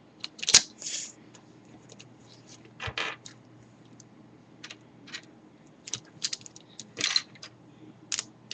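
Plastic pieces of a V-Cube 5 puzzle cube clicking and clacking as they are handled and fitted back into place: scattered irregular clicks, with the sharpest snap about half a second in.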